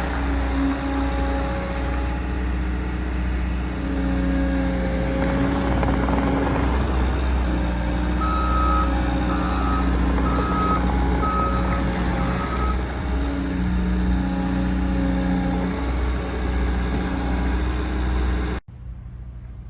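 Bobcat T66 skid steer's diesel engine running, its pitch shifting now and then as the machine works, with the backup alarm beeping five times, about once a second, midway through. The engine sound cuts off abruptly near the end.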